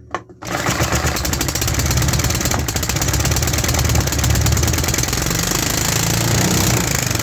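3D-printed single-cylinder fuel-injected petrol engine starting up about half a second in and then running fast and loud, a rapid, even stream of firing pulses.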